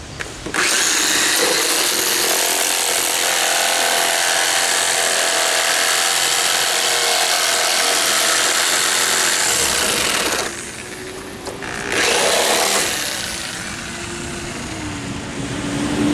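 Power saw with a multi-purpose blade cutting a recess for a door latch, running steadily for about ten seconds, stopping, then a short second burst of cutting.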